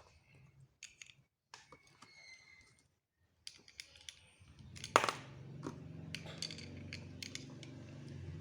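Plastic LEGO bricks clicking as they are handled and pressed together, in scattered sharp clicks with the loudest snap about five seconds in. A low steady hum comes in about halfway through.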